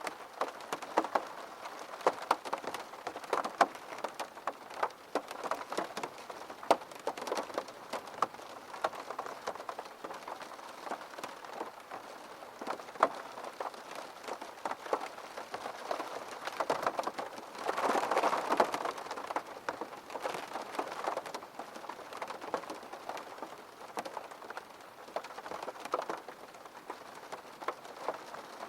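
Gentle rain falling steadily, with many individual drops standing out as sharp ticks over the hiss. It swells briefly heavier about two thirds of the way through.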